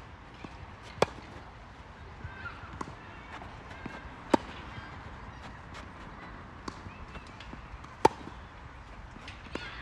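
Tennis rally: sharp pops of racket strings striking the ball. The three loudest come about a second in, just past four seconds and at eight seconds, with fainter hits and bounces from the far end in between.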